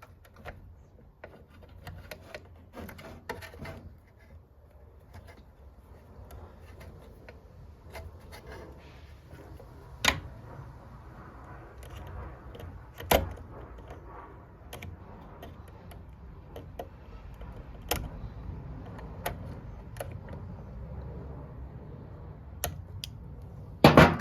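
Hands handling and fitting plastic tubing and clips onto valve ports: scattered light clicks and rustles, with sharper knocks about ten and thirteen seconds in and a cluster near the end.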